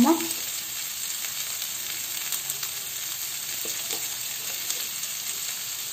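Potato and pointed gourd pieces frying in hot oil in a steel kadhai, a steady sizzle.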